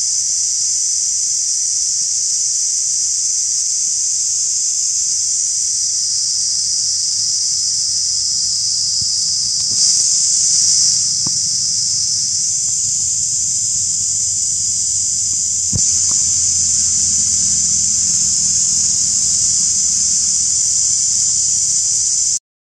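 Insects droning steadily at a high pitch, with a faint low rumble underneath and a couple of small clicks partway through.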